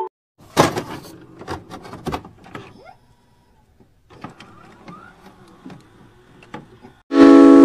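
Edited-in intro sound effects: a run of irregular clicks and crackles for a couple of seconds, a pause of about a second, then fainter scattered clicks. Loud keyboard music starts about seven seconds in.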